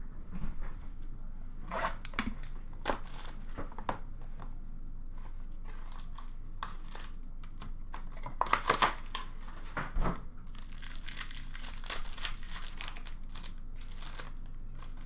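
A trading card box and its foil pack being opened by hand: wrapping crinkled and torn. The crackles come scattered, densest about nine seconds in and again from about eleven to thirteen seconds.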